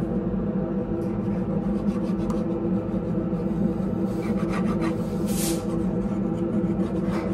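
Nitrile-gloved hands rubbing and sliding against a large plastic armor part, over a steady low hum. A brief hiss comes about five seconds in.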